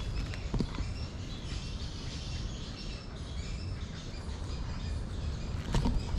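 Small birds chirping faintly in woodland over a steady low rumble, with a couple of brief rustles, one about half a second in and one near the end.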